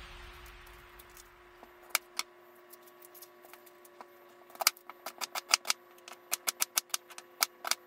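Kitchen knife chopping an onion on a plastic cutting board: a quick run of sharp knocks from about halfway in, after a few scattered clicks.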